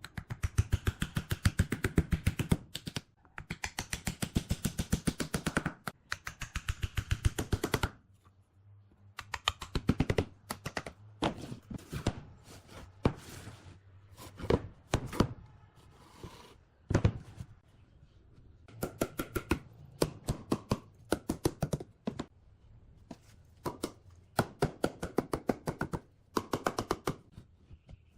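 Rapid repeated knocks of a tool striking wood, many strikes a second, in bursts of a few seconds with short pauses between.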